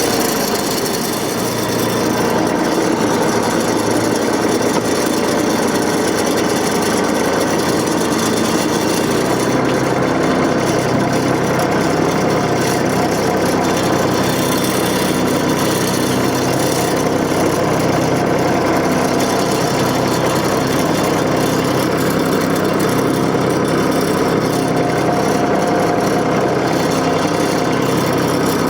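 Diesel engine of the compact tractor carrying a John Deere 485A backhoe, running steadily; its note changes about nine seconds in.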